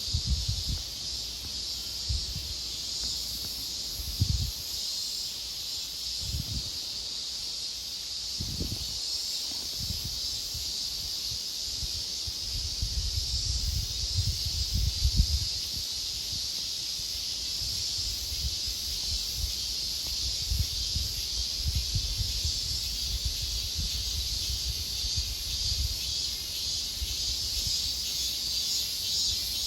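Steady high-pitched insect chorus, with occasional low thumps and rumbling on the microphone that are heaviest about 13 to 15 seconds in.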